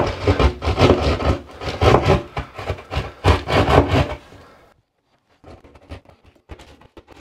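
Hand drywall saw sawing through a drywall ceiling in rasping back-and-forth strokes, about two a second. The sawing stops suddenly about two-thirds of the way through, leaving only faint scrapes and ticks.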